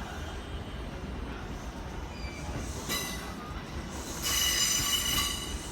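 Electric commuter train rumbling slowly into the platform as it brakes to a stop, with a brief high brake squeal about three seconds in and a louder, longer squeal of several high tones about a second later.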